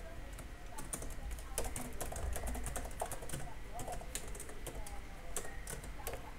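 Computer keyboard typing: a run of irregular, quick keystroke clicks as code is typed.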